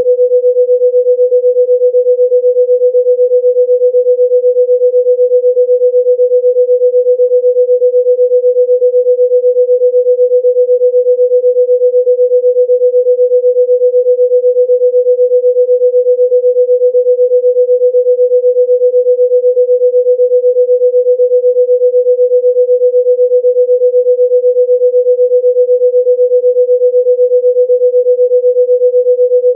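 A single steady electronic sine tone of mid pitch, held unchanged throughout, with a fast, even pulse in its loudness: a healing-frequency tone.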